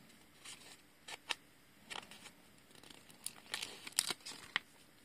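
Small paper booklet handled and folded between the fingers: a scattering of light paper rustles and short clicks, busiest from about three to four and a half seconds in.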